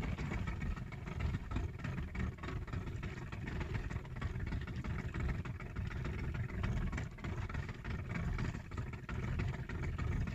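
Small fishing boat's engine running steadily, a continuous low rumble with uneven loudness.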